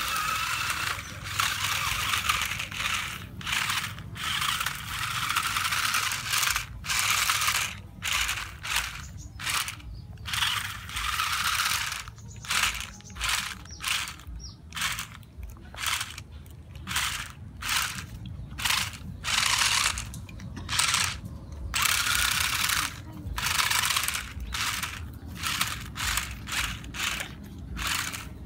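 Toy RC stunt car's small electric motors and gearboxes whirring in repeated stop-start bursts as it drives and spins on its mecanum roller wheels.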